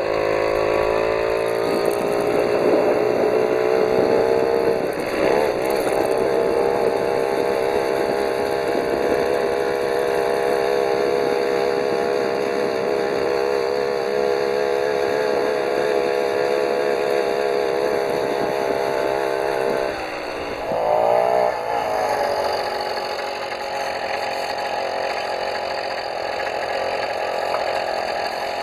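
Small single-cylinder engine of a FUKI FK310 motorized bicycle running while the bike is ridden, with a steady buzzing note. About twenty seconds in it drops off, revs up briefly, then settles to a lower, quieter run.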